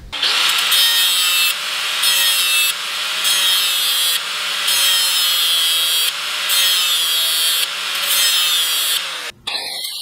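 Corded handheld electric grinder grinding down the sharp cutting edges of steel bolt-cutter jaws: a steady, high-pitched grinding that eases for a moment every second or so as the wheel comes off the metal and goes back on. It cuts off abruptly near the end.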